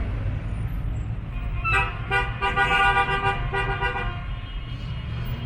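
Vehicle horn honking in a series of short toots lasting about two seconds, over a steady low rumble of street traffic.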